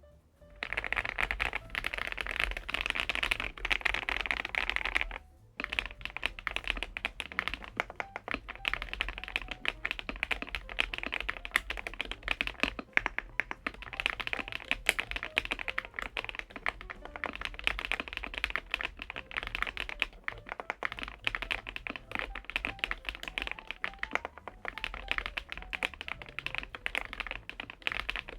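Fast continuous typing on a Kzzi K98 mechanical keyboard with leaf-spring mount and PBT keycaps: a dense run of key clacks, with a short pause about five seconds in.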